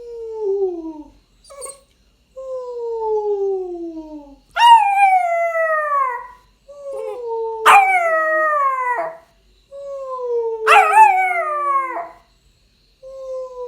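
A 9-week-old Rottweiler puppy howling along with a person's howls. The person gives long, smooth, lower howls that slide down in pitch. The puppy answers about four times with higher howls that start abruptly and fall, overlapping the person's next howl.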